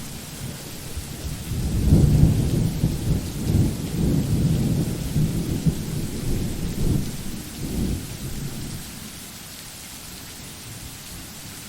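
A roll of thunder swells about two seconds in and rumbles low with several surges, then dies away after about eight seconds, over steady rain.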